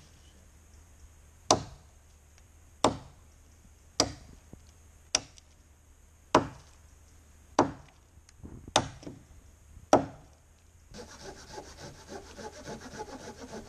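A standing tree stem being felled by hand: eight sharp chopping blows into the green wood, a little over a second apart. Near the end these give way to a saw rasping steadily back and forth through the trunk.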